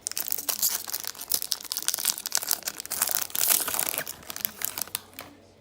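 A hockey card pack wrapper being torn open and crinkled by hand: a dense run of crackling and rustling that stops near the end.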